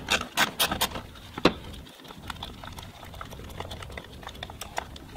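A small hand ratchet clicking while the mass airflow sensor's 7 mm bolts are backed out of a plastic air intake housing: a quick run of sharp clicks in the first second and a half, then lighter ticks and handling of the plastic.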